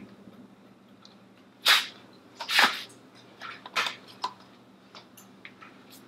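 Handling noise from measuring wooden table legs on a concrete floor with a tape measure: two louder scrapes about a second apart near the middle, then a few light clicks and taps.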